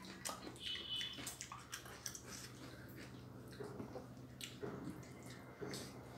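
Hand-eating sounds: fingers squishing and mixing soft dhido in a metal plate, with scattered small wet smacks and clicks of chewing. A faint steady hum runs underneath.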